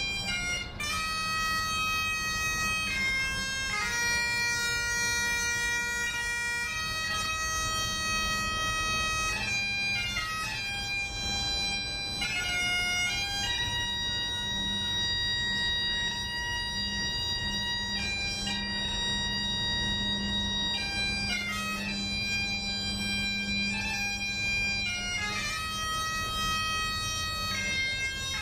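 Bagpipe music: a slow melody of long held notes with quick grace-note flourishes between them, over a steady drone.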